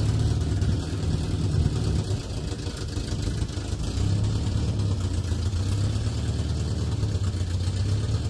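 A 1967 Volvo 122S's four-cylinder engine running at low revs as the car moves off slowly. Its note drops back about two seconds in and picks up again about four seconds in.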